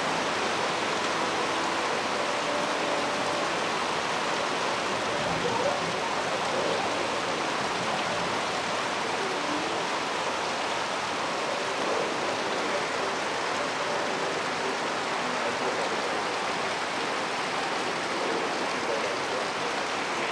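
Heavy rain pouring steadily: a dense, even hiss of falling water that does not let up.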